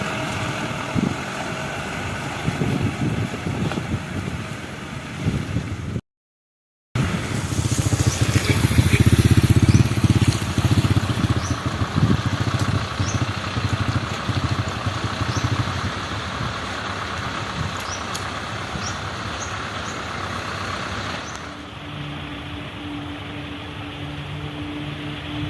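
Heavy road-construction machinery engines running. The sound cuts out completely for about a second some six seconds in, is loudest around nine to ten seconds, and settles into a quieter, steadier hum near the end.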